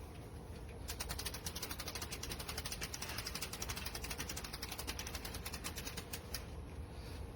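Patio umbrella crank ratcheting as it is wound, a fast, even run of clicks that starts about a second in and stops about six seconds in.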